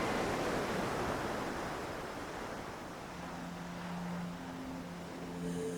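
Sound of ocean waves washing, an even rushing that slowly fades, played as the intro of the song. About three seconds in, a low sustained humming tone comes in beneath it.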